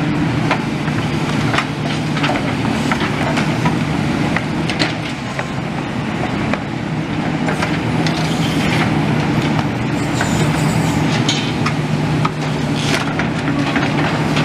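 Demolition excavator's diesel engine running steadily under load, with repeated clanks and knocks of metal rebar, girders and scaffolding poles being pulled out of the rubble.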